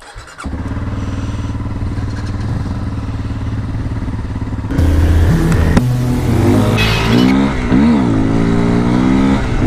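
2016 Honda CRF250L's single-cylinder engine, with a modified exhaust, idling steadily, then pulling away about five seconds in, louder, its pitch rising, dipping briefly with a gear change and climbing again.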